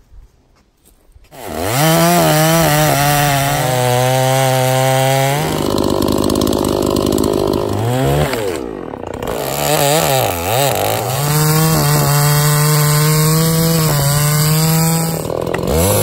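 Petrol chainsaw cross-cutting a dead elm log. It comes in about a second and a half in, revs up and runs at full throttle through the wood, easing off briefly three times, near 5, 10 and 15 seconds in.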